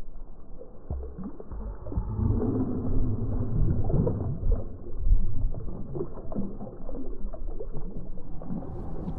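Shallow water splashing and sloshing as a released striped bass kicks its tail and swims off from a hand, over a low rumble.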